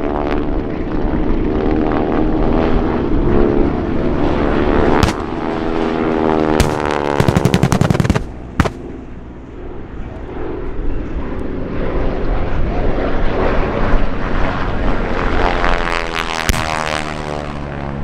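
Propeller-driven warbirds with radial engines, flown as Japanese aircraft replicas, pass overhead with a droning engine note whose pitch slides down as one goes by and climbs again as another approaches. Sharp cracks from airshow pyrotechnics cut through it, including a rapid string of cracks lasting about a second, midway through.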